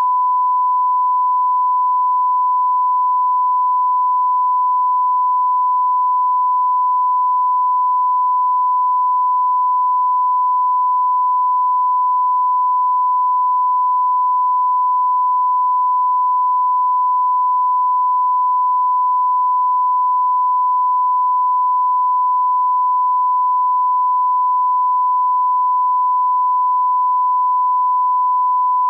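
Line-up test tone accompanying colour bars: a single steady pure beep at 1 kHz, held without a break or change in level.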